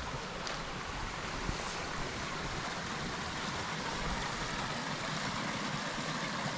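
Small stream running beneath a footbridge: a steady rush of water.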